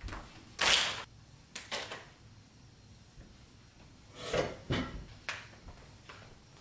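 Someone moving things about a kitchen: a loud rustle about a second in, a couple of clicks, then a sliding sound followed by several sharp knocks as items are put down on the counter.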